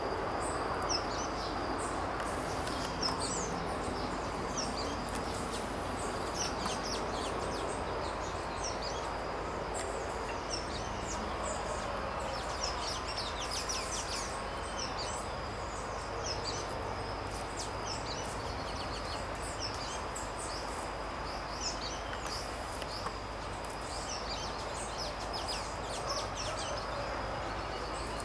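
Outdoor ambience of small birds chirping: many short, high chirps scattered throughout over a steady background noise, with a thin, steady high tone running underneath.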